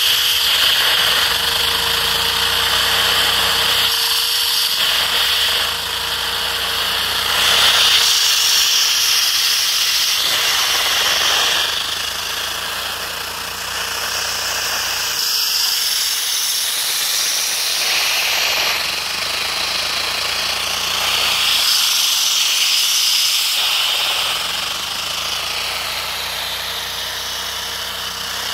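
A one-cylinder LEGO vacuum engine running on suction: its plastic parts clatter rapidly over a steady hiss of drawn air. The clatter stops and picks up again several times.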